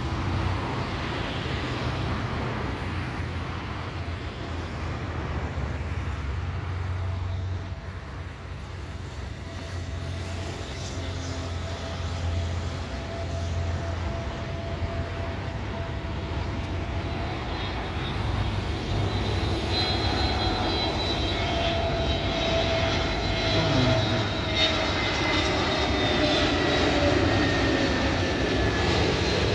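Airbus A320neo jet engines on landing approach: a hum that grows louder as the airliner nears. From about two-thirds of the way in, high whining tones come in and slide slowly down in pitch as it passes.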